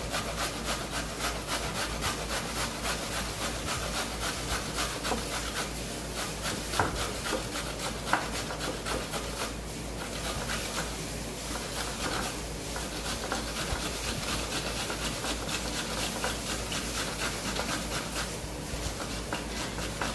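A carrot being grated on a four-sided stainless steel box grater: quick, rhythmic rasping strokes, with two sharper clicks partway through and a couple of brief lulls.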